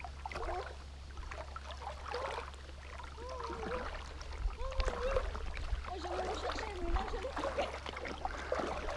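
Faint, distant voice calling across the water several times, over a steady low rumble and light splashing of water.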